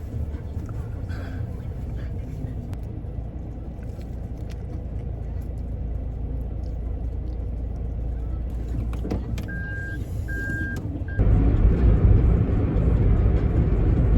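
Car running on the road, a steady low rumble of engine and road noise. About two-thirds of the way through come two short electronic beeps, and soon after the rumble suddenly gets louder.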